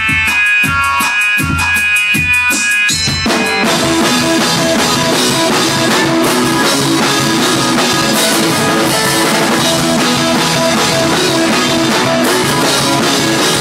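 Rock band playing live: a drum kit's bass drum keeps a steady beat under sustained keyboard chords, then about three and a half seconds in the full band comes in, with drums and cymbals crashing over guitar.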